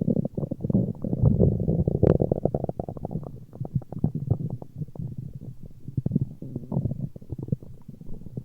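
A human stomach growling: a dense run of rapid crackling pops and low rumbles, loudest in the first three seconds, with one sharper click about two seconds in.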